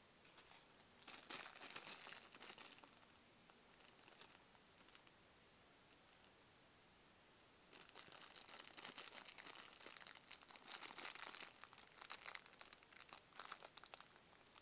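Thin clear plastic bag crinkling as hands handle a coiled cable packed inside it. There is a short spell about a second in, then a longer, busier spell from about eight seconds in to near the end.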